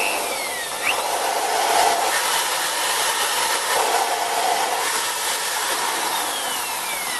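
500-watt AEG electric drill running steadily with no load, spinning a thin abrasive cutting disc on an arbor mandrel.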